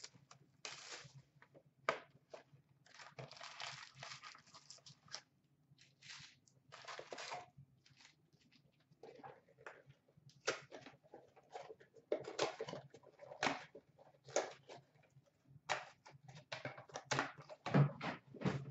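Hands opening a box of hockey card packs: irregular crinkling, rustling and tearing of foil pack wrappers, with light taps, over a faint steady low hum.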